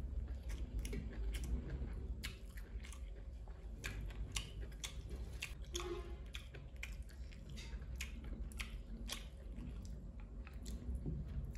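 Close-miked chewing: a man eating a mouthful of rice by hand, with many short wet mouth clicks and smacks.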